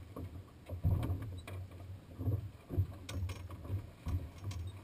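Small boat rocking on choppy open water: uneven low thumps of water against the hull and wind buffeting the microphone, with a few short sharp clicks and knocks.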